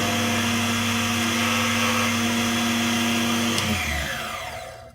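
DEFU 368A key cutting machine running steadily as its milling cutter makes a pass on the tip of a laser-cut Honda key. About three and a half seconds in the motor is switched off and spins down, its pitch falling as it fades.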